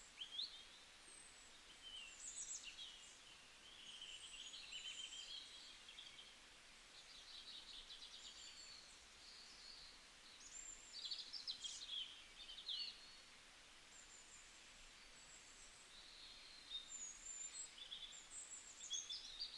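Faint birdsong: high chirps and short warbling phrases, coming in bursts with a quieter lull about two-thirds of the way through.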